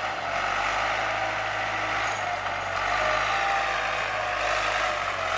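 Diesel engine of heavy earthmoving machinery, most likely the bulldozer, running steadily under work.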